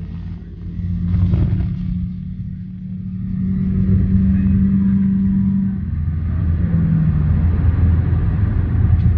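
Car in motion at highway speed, heard from inside the cabin: a steady low rumble of engine and tyre noise with a droning hum, swelling about a second in and again from about three seconds on.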